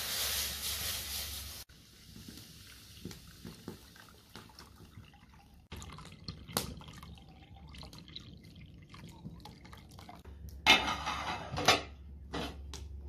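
Colostrum milk pouring from a plastic bucket through a metal strainer into an aluminium pot, splashing and dripping, loudest in the first second and a half. A louder burst of noise, about a second long, comes near the end.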